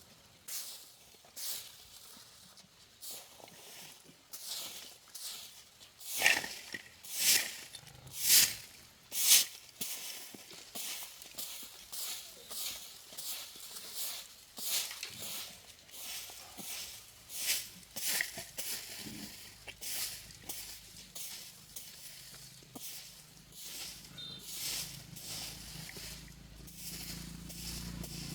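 A run of short scraping strokes, about one a second, loudest a few seconds in.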